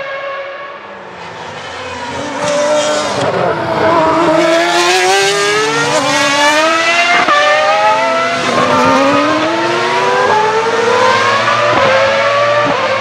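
1995 Ferrari 412 T2 Formula 1 car's 3.0-litre V12 screaming at high revs: the revs fall about three seconds in as it slows for the corner, then climb again through several upshifts, the pitch rising and dropping back at each gear change.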